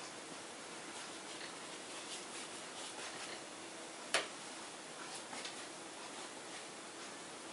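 Soft, faint strokes of a paintbrush laying acrylic paint on canvas over a steady background hiss, with one sharp click about four seconds in.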